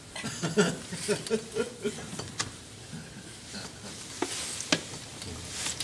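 Scattered sharp clicks and rustling handling noise, with faint murmuring voices in the first two seconds.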